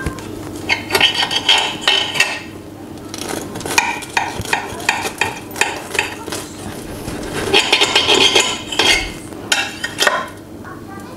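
A knife sawing through the crust of a baked, sugar-topped brioche ring in several runs of quick scraping strokes, with short pauses between them.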